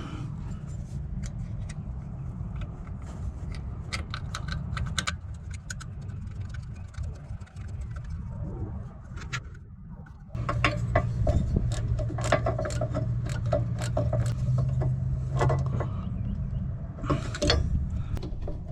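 Metallic clicks and clinks of hand tools and parts during wheel hub and brake reassembly, over a steady low hum. About halfway through it gets louder, with a steady low drone for several seconds.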